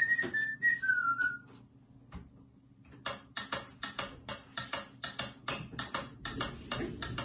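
Background music: a whistled tune that ends about a second and a half in, then, after a short gap, a beat of dry wood-block-like clicks, about four a second.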